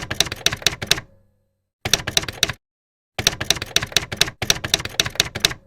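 Typewriter keys clacking in three quick runs of rapid strikes, with dead silence between the runs, as in an edited typing sound effect.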